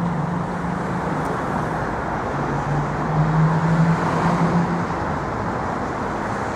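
Street traffic: a steady hum of vehicles with a low engine drone that grows stronger about two and a half seconds in and eases off again near the five-second mark.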